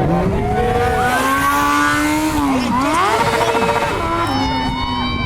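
Motorcycle engine revving high and held on the throttle, dipping and climbing back in pitch about two and a half seconds in, then easing down a little near the four-second mark.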